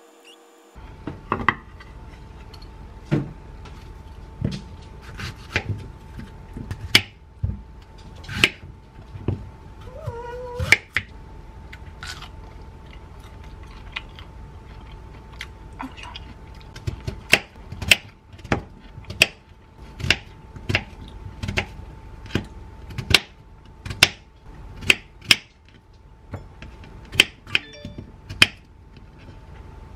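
Kitchen knife cutting a peeled peach on a wooden plate: the blade knocks on the wood in sharp taps, which come in a steady run of about two a second in the later part. A thin steady hum runs underneath.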